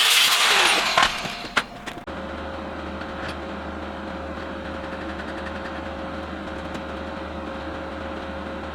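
A power grinder working steel, winding down in pitch and dying away in the first second or so, with two sharp clicks. About two seconds in, it gives way abruptly to a steady machine hum with a low drone and a single steady tone.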